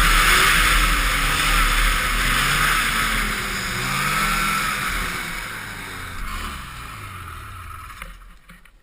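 Ski-Doo Blizzard 5500 snowmobile's 503cc two-stroke engine running at speed under heavy wind rush, then its note falls in pitch and fades, nearly gone near the end.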